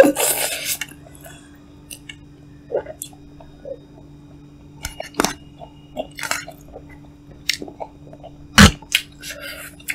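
Close-up eating sounds of a person chewing cup noodles, with scattered small clicks and one sharper click a little before the end, over a steady low hum.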